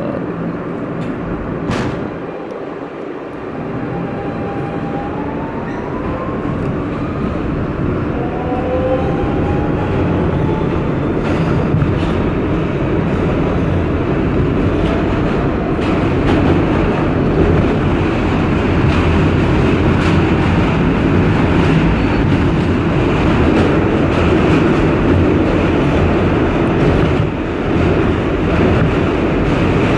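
R160B subway train with Siemens propulsion pulling out of a station: the motors' whine rises in pitch in a couple of steps early on. Then the rumble and clatter of the wheels on the rails builds as the train gathers speed into the tunnel.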